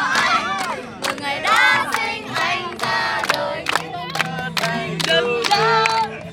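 A group of people cheering and whooping, with rhythmic hand-clapping.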